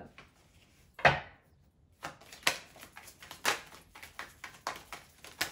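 A sharp knock on a wooden tabletop about a second in, then a deck of tarot cards being shuffled by hand: a run of quick card clicks and slaps, about two to three a second.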